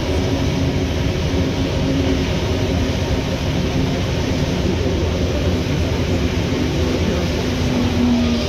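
Interior noise of a rubber-tyred MP89 CC metro train running: a steady low rumble with a faint hum.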